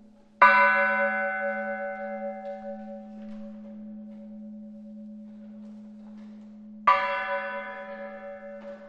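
Church bell struck twice, about six seconds apart. Each strike rings out with many overtones and slowly fades over a steady low hum.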